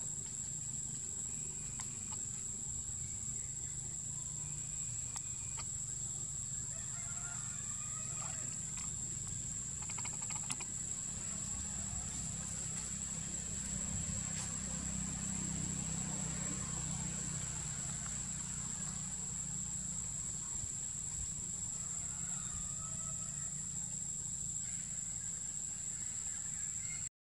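Outdoor ambience: a steady high insect drone over a low rumble, with scattered short faint chirps and squeaks and a few small clicks about ten seconds in.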